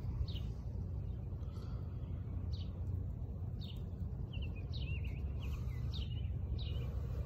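Small birds chirping: short, quick downward-sliding chirps, repeated every second or so and coming in a quick run about two thirds of the way through, over a steady low rumble.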